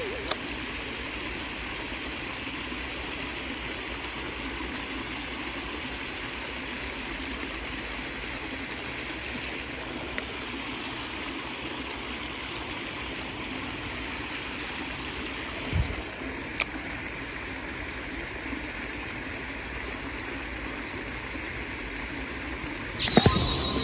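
Water spilling over a small concrete weir in an irrigation channel: a steady rushing of falling water. A few faint clicks and a low thump about two-thirds through, and a sudden loud burst of sound just before the end.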